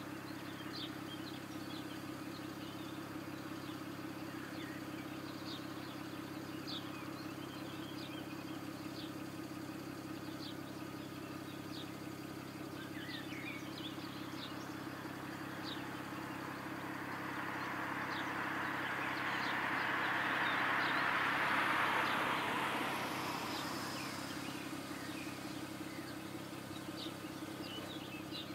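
A car engine idling steadily, with birds chirping. About two-thirds of the way in, a broad rushing noise swells over several seconds and then fades away.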